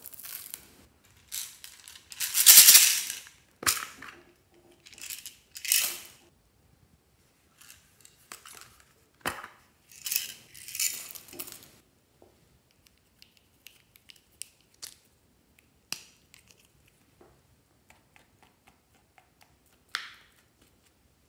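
Foam beads, small plastic charms and sprinkles poured and scattered from plastic containers into a glass dish of slime: uneven bursts of rattling and clattering, loudest about two seconds in, with a few sharp clicks. In the second half it thins to sparse small ticks.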